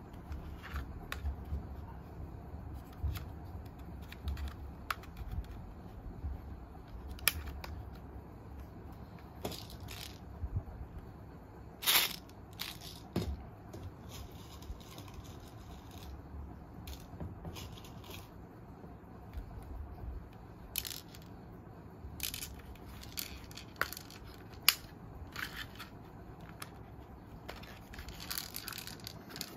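Manual spring-powered toy BB gun (319 model) being handled, cocked and fired: about a dozen sharp plastic clicks and snaps at irregular intervals, the loudest about twelve seconds in, over a low rumble of handling.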